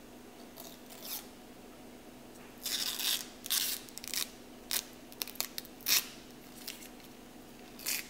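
Thin protective plastic film being peeled off a brushed-aluminium motherboard heat spreader: a string of short, irregular crackling tears starting about two and a half seconds in. A faint steady hum runs underneath.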